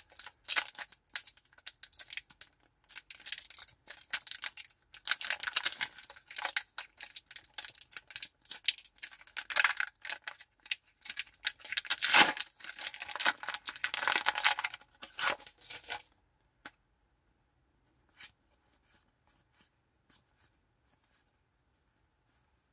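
Foil wrapper of a Pokémon Paldea Evolved booster pack crinkling and tearing in irregular bursts as it is ripped open by hand. About sixteen seconds in the tearing stops, leaving only a few faint ticks.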